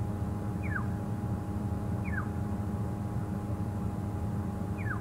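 Safari vehicle's engine idling as a low, steady rumble, while a bird gives a short falling whistle three times.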